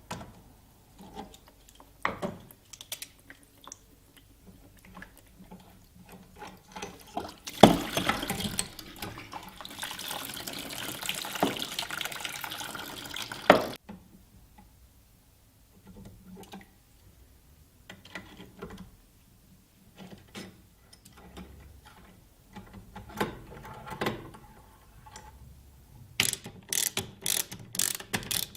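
Plumbing tools being worked by hand: scattered clicks and knocks. Water runs for about six seconds, starting about eight seconds in. Rapid ratchet clicking starts near the end.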